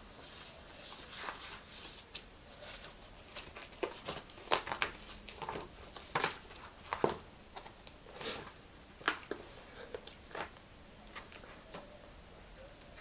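Paper documents and folders being handled while someone leafs through filed papers: an irregular run of rustles, small clicks and taps.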